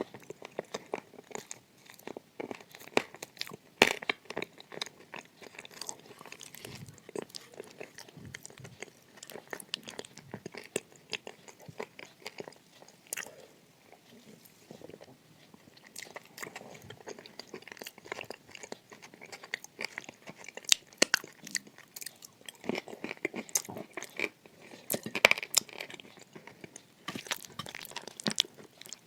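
Close-miked biting and crunchy chewing of hard, brittle pieces, eaten ASMR-style. Irregular crackles run throughout, with a few sharp, loud bites and a quieter stretch of softer chewing midway.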